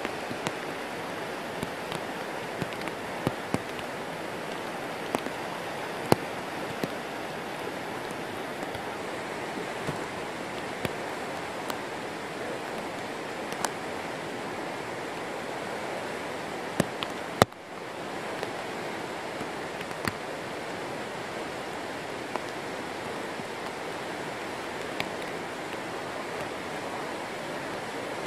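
Whitewater rapids rushing steadily, with occasional sharp clicks scattered through; the rush drops out for a moment about two-thirds of the way through.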